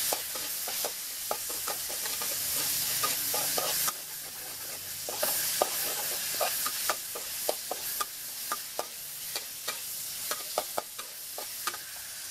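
Shrimp frying in hot oil with chili and garlic, sizzling steadily, while a metal spatula stirs and scrapes against the metal wok with irregular clinks.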